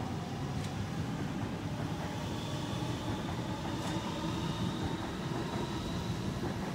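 Sydney Trains double-deck electric train pulling out of the platform and accelerating past: a steady rumble of wheels on rail with an electric motor whine rising in pitch, and a couple of light clicks from the wheels.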